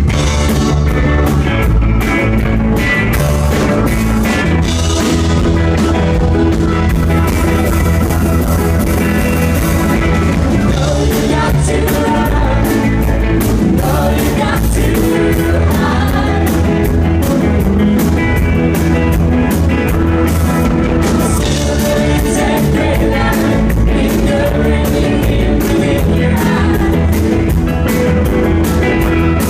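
Live rock band playing, with electric guitars, drums and singing, heard loud and steady from the audience.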